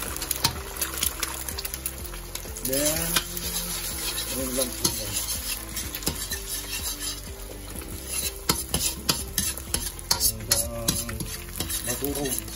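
Eggs sizzling in hot oil in a wok while a metal spoon stirs and scrambles them, scraping and clicking against the pan. The clicks are thickest a little past the middle.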